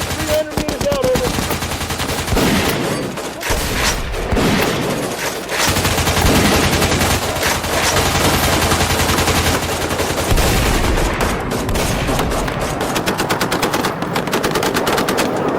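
Rapid, continuous shots fired several times a second, like full-auto fire during a blaster battle, with a low steady hum underneath.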